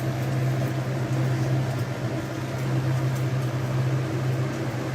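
Steady hum and fan-like noise of a BGA rework station running, its preheater heating the laptop motherboard from below for reflowing the graphics chip.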